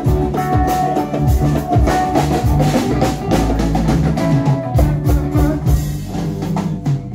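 Live band music: a drum kit keeping a steady beat under a bass line and sustained instrument notes.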